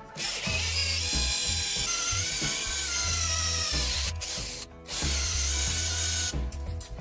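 Electric drill boring into a metal rod held in a vise, its motor whining under load. It runs in two stretches, stopping briefly about four seconds in and cutting off again shortly before the end. Background music plays underneath.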